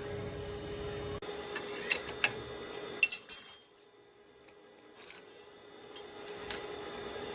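Small metal objects clinking and tapping in a workshop: several light, separate strikes, the loudest a short ringing cluster about three seconds in, over a steady electrical hum.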